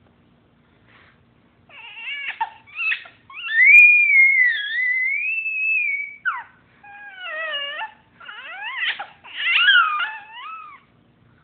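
Baby's high-pitched squealing: a few short squeaks, then one long wavering squeal of nearly three seconds, then a run of shorter squeals that slide up and down in pitch.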